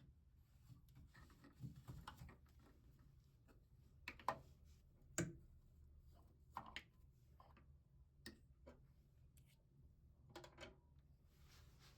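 Near silence in a small room, broken by a few scattered small clicks and knocks, the loudest a quick pair about four seconds in and another just after five seconds.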